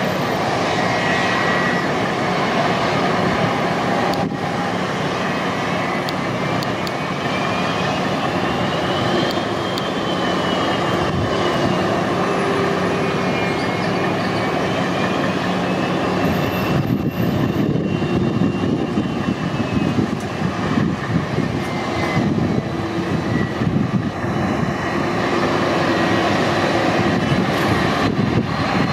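Boeing 747-400's four jet engines running at taxi power: a steady rumble and hiss with a high whine that slowly rises and falls in pitch.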